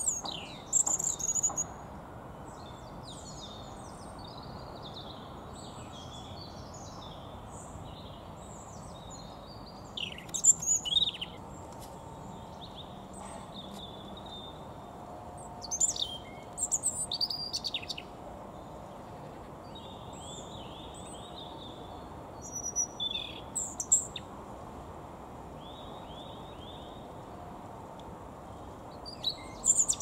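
European robin singing: short, high-pitched warbling phrases several seconds apart, with fainter twittering between them over a steady background hiss.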